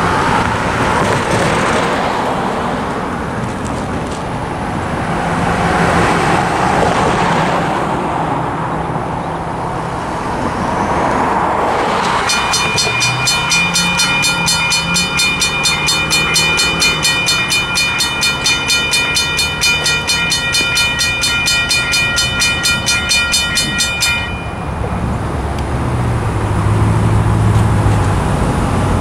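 Road traffic passing, then railroad crossing bells (a WCH Type 3 electronic bell and a US&S mechanical bell) start about twelve seconds in, ringing in a fast, even stream of strikes for about twelve seconds before stopping. A low steady drone builds near the end.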